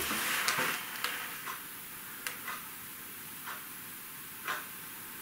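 Quiet room with a steady hiss and a handful of faint, irregularly spaced ticks; the one about four and a half seconds in is the loudest.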